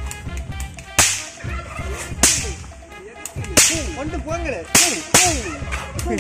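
Edited-in whip-crack sound effects, five sharp cracks with a hissing tail, dubbed as the shots of a toy water pistol. Warbling, sliding tones run between the later cracks.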